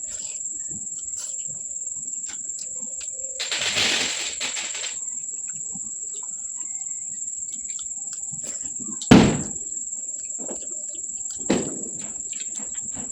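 A person eating, with a noisy crunching or rustling burst about three and a half seconds in and short sharp knocks about nine seconds in, the loudest, and again about eleven and a half seconds in. A steady high-pitched whine runs underneath throughout.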